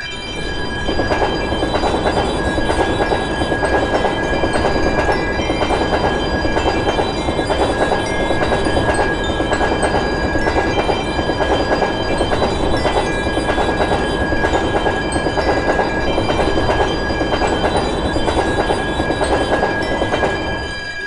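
Train passing over a level crossing: steady rolling rumble and wheels clattering over the rail joints. It sets in sharply about a second in and lasts for about twenty seconds. Thin steady ringing tones from the crossing's warning bell carry on underneath.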